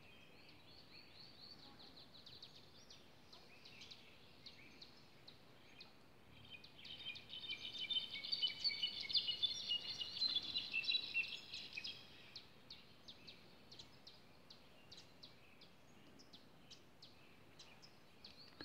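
Songbirds (jilgueros) singing, with many short chirps throughout. A louder, dense burst of rapid warbling song comes from about seven to twelve seconds in.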